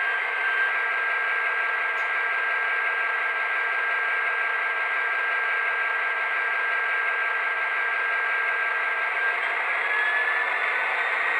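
Sound decoder of a Broadway Limited Paragon4 HO-scale EMD GP20 model playing its diesel engine running steadily, through the model's small speaker. A thin high whine sits over the engine sound and rises in pitch near the end.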